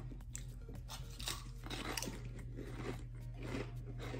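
A person chewing a mouthful of wavy potato chips: a run of irregular crisp crunches, several a second.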